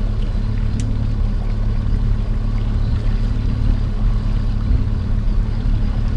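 Boat's Mercury outboard motor running steadily at trolling speed, a constant low hum with the wash of water and wind over it.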